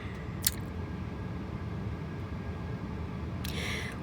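Steady low road rumble inside a moving car, with a single sharp click about half a second in.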